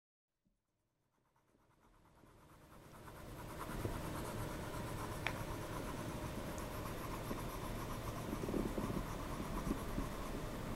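Steady low room noise fading in over the first few seconds, with faint rustling and scratching throughout.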